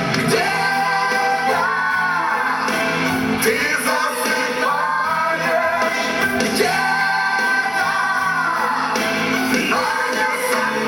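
Dance music with a singing voice holding long notes that glide up and down over the accompaniment.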